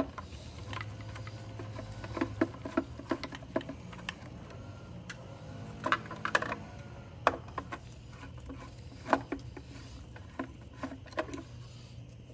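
Scattered light clicks and small knocks of a screwdriver and loose screws as the motherboard screws are backed out of a Graco GMax airless sprayer's control box, over a faint steady low hum.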